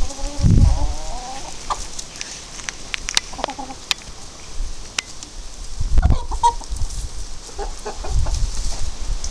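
Lohmann Brown hens clucking in short calls, a wavering call near the start and more later, with a few sharp clicks and low rumbles between them.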